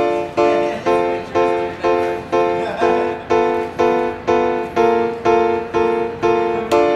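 Background music of strummed chords in a steady, even rhythm, about two strokes a second.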